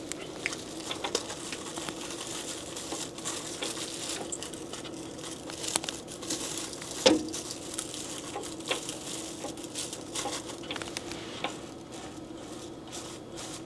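Thermal transfer ribbon film being handled and threaded through a label printer by hand: plastic film crinkling with scattered small clicks, and one sharper knock about seven seconds in, over a faint steady hum.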